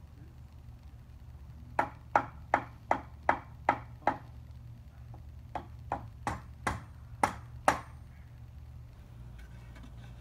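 Hammer blows on the swing set's wooden top beam and its hardware: two runs of about six quick, evenly spaced strikes with a slight metallic ring.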